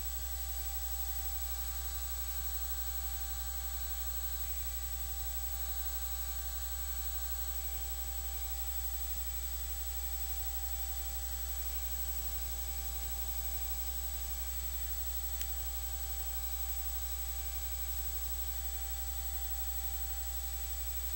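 Steady low electrical hum with a constant hiss and a few faint fixed tones; no hoofbeats, voices or other events stand out.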